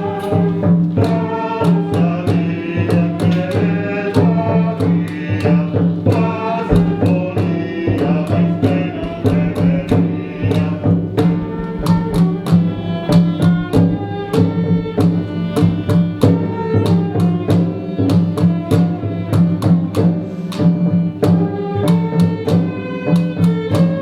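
Live early-music ensemble playing a medieval cantiga: a melody line over a steady low drone, with a hand drum keeping a regular beat.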